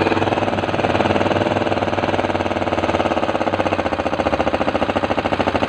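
Yamaha Mio 125 scooter's single-cylinder engine idling with a rapid, even firing beat. It is running a high idle that is being turned down, just after a repair for a leaking valve.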